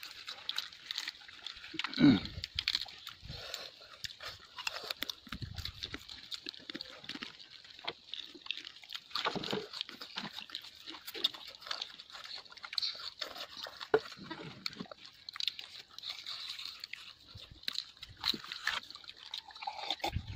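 Close-up eating sounds: wet chewing, lip-smacking and crunching as people eat grilled chicken and rice with their hands, in an irregular run of short smacks and clicks. A louder knock comes about two seconds in.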